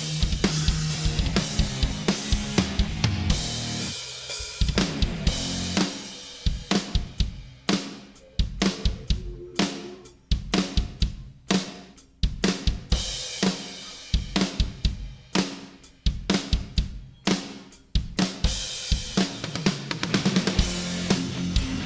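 Drum kit played along to a backing track, its snare a 6x14 ten-ply waterfall bubinga shell with 30-strand snare wires. For the middle stretch the backing track falls away and the drums are heard alone in short runs of sharp hits with brief gaps, before the full music comes back near the end.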